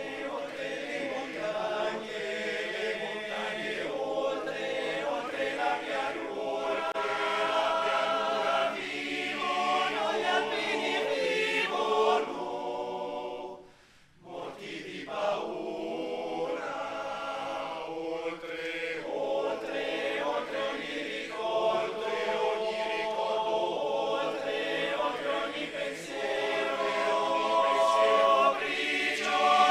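Male choir singing unaccompanied in several parts. There is a brief pause between phrases about fourteen seconds in, then the singing resumes.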